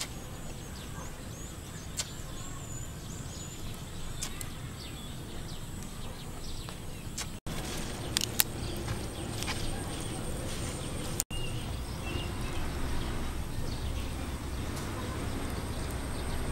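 Outdoor ambience: a low steady rumble under a faint, steady high whine, with scattered short bird chirps. A few sharp clicks are heard, and the sound drops out for an instant twice.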